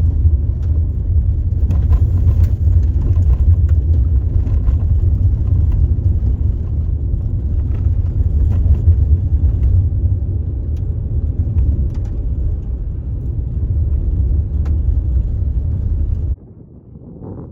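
Subaru Forester driving: a steady low road rumble with scattered small clicks, cut off suddenly near the end.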